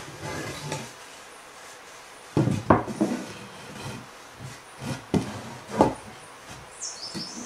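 Pine boards handled on a plywood workbench: a wood-on-wood scrape as a board slides across the top, then a string of wooden knocks as the boards are set down on edge and butted together, the loudest about a third of the way in and again past the middle.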